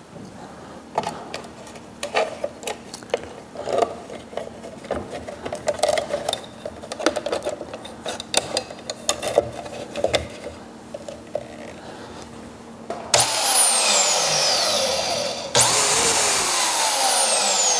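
Metal clicks and handling knocks as a blade is fitted onto a portable bandsaw. About 13 seconds in, the bandsaw is switched on and runs loudly with a whine that falls in pitch. It stops briefly and is started again, test-running the blade on newly replaced guide bearings.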